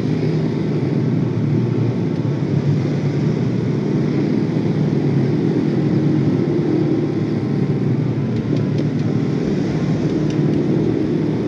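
Motorcycle engine running at a steady cruise while riding in traffic: an even engine drone mixed with road noise.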